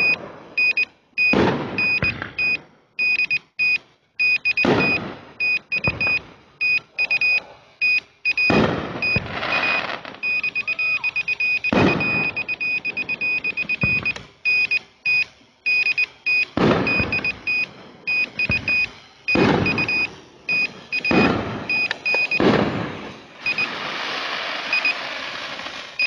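Fireworks going off close by: a rapid series of loud bangs and crackling bursts, each fading out, several dozen in all. A steady electronic beeping keeps sounding between them.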